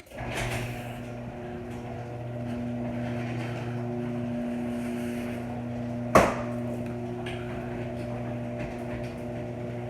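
C410 garage door opener running a door through its travel: a steady motor hum with a drive rattle. There is one sharp clunk about six seconds in.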